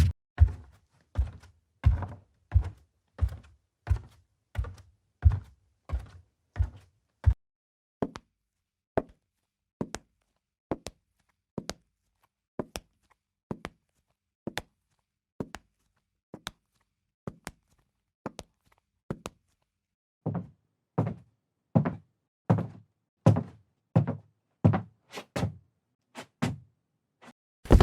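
Footsteps on a wooden floor. A heavy, even walk at about three steps every two seconds with a low thud to each step gives way at about eight seconds to lighter steps of about one a second. After a brief pause near twenty seconds, heavier steps return at the faster pace.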